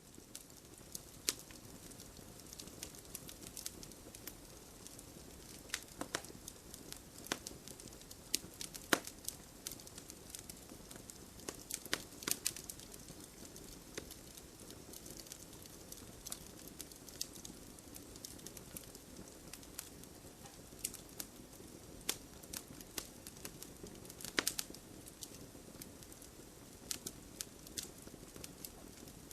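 Burning logs in a campfire, crackling with irregular sharp pops and snaps over a steady soft hiss of the flames.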